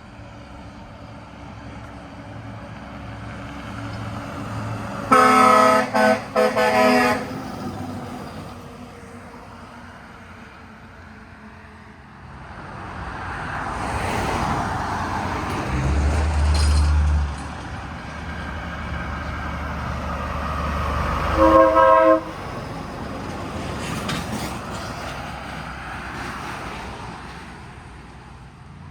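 An air horn blows three quick chord-like blasts. A heavy vehicle then passes with a swelling rush and a low engine hum, and the horn gives one more short blast as it goes by.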